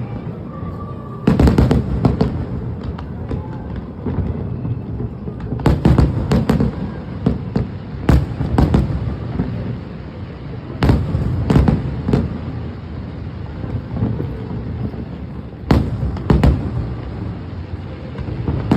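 Aerial fireworks bursting in a display finale: clusters of sharp booms every few seconds, each trailing off in a rumbling echo.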